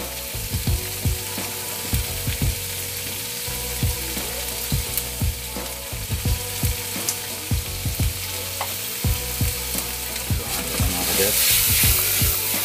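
Shrimp and ground meat frying in a nonstick pan over a gas flame: a steady sizzle with frequent soft knocks from stirring and handling the pan. The sizzle grows louder near the end as the pan is shaken and tossed.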